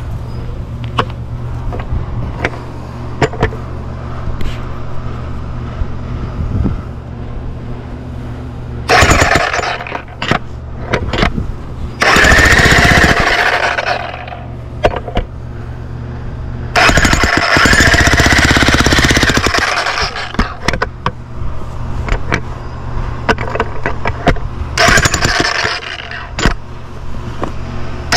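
Harbor Freight Hercules electric jackhammer hammering on a concrete fence post in four runs of a few seconds each, breaking the concrete up. Between the runs a steady low hum and scattered knocks are heard.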